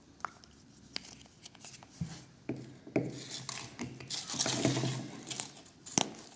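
A Kinder Surprise egg being opened by hand: its foil wrapper crinkling and tearing, with several sharp snaps and clicks as the chocolate shell and plastic capsule are broken open.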